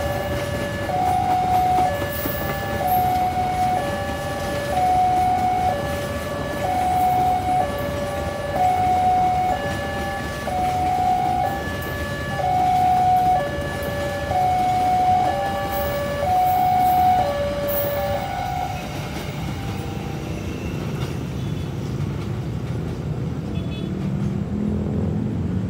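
Two-tone warning alarm alternating between a higher and a lower tone about once a second, over the steady rumble of a train. The alarm stops about 18 seconds in, and the train noise carries on.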